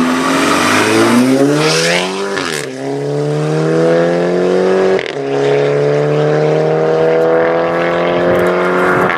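Straight-piped Volkswagen Golf GTI MK6's turbocharged four-cylinder engine accelerating hard through the gears. The engine note climbs steadily and drops sharply at upshifts about two and a half seconds in, about five seconds in and again at the very end, climbing more slowly in each higher gear.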